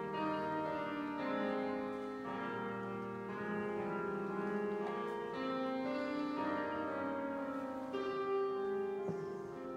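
A mixed high school choir sings a slow piece in sustained chords that change every second or two. The sound rings in the church's reverberant space.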